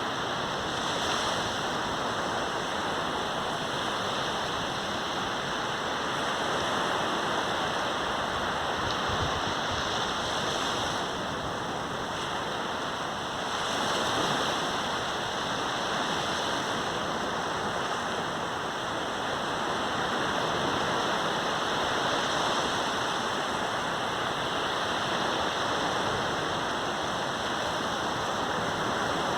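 Caribbean Sea surf washing onto the beach: a steady, continuous rush of breaking waves that swells gently now and then as a wave comes in.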